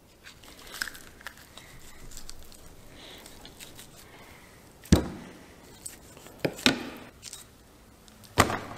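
Knife cutting and scraping venison off the shank bone on a plastic cutting board, with faint handling noise and a few sharp knocks of bone or knife on the board and table, the loudest about five seconds in.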